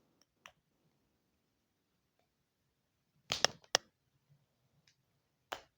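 Sharp clicks and snaps from a sound machine's parts being worked apart by hand while its small speaker is pried out: three or four in quick succession a little past halfway, and one more near the end.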